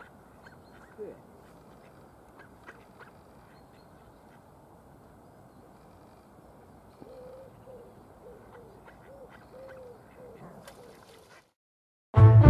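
Ducks calling on open water: faint, short, arched calls over a steady background hiss, with a run of them coming one after another about halfway through. The sound drops out just before the end, and a burst of loud music cuts in right at the close.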